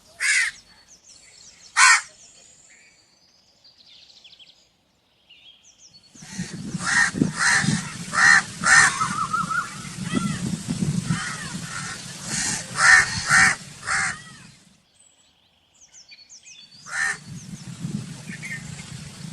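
Crows cawing: two loud single caws in the first two seconds, then after a pause a run of repeated caws over a steady low hum and background noise, which cuts off abruptly; the hum and noise return near the end.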